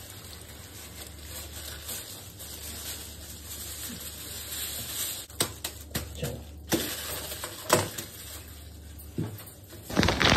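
Aluminium foil being crumpled and pressed by hand into a packet around chicken pieces: a crinkling rustle with many sharp crackles. A louder brush of noise close to the microphone about ten seconds in.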